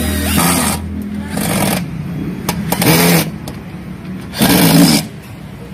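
Cordless drill driving screws into a table frame: the motor runs steadily, stops about a second in, then fires in several short bursts, the last one near the end the loudest, with light clicks in between.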